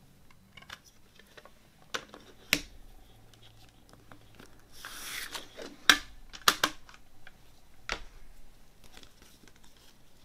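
Plastic CD jewel case being handled and opened on a wooden table: a string of sharp plastic clicks and clacks, with a brief scraping rustle about halfway through.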